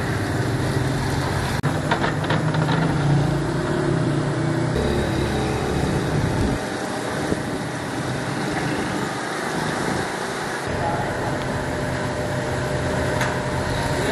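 A steady low engine drone, the low part falling away for a few seconds in the middle.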